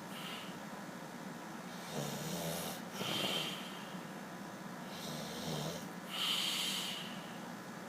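Snoring in a slow, regular rhythm: two breaths about four seconds apart, each a low inhale followed by a louder, breathy exhale.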